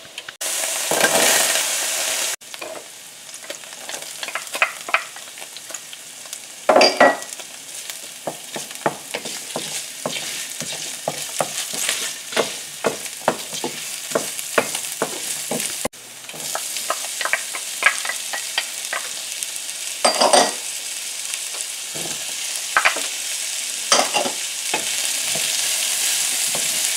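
Vegetables frying in oil in a stainless steel skillet with a steady sizzle, while a wooden spoon stirs them, scraping and clicking against the pan many times and knocking loudly a few times. The sizzle is loudest in the first two seconds.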